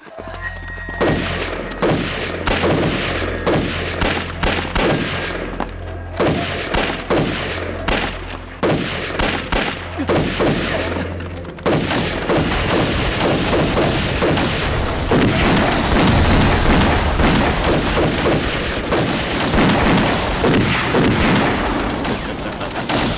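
Battle-scene gunfire: volleys of rifle and machine-gun shots with booms, many shots in quick succession. A low steady drone sits under the first half, and the firing grows denser and more continuous after about twelve seconds.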